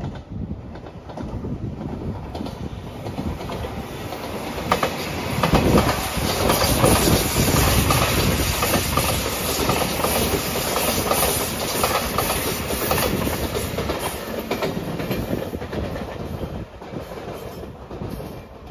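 An eight-car JR Shikoku 8000 series electric limited-express train passing close by, wheels clacking over the rail joints. It grows louder as it approaches, is loudest from about five to thirteen seconds in, then fades as it moves away.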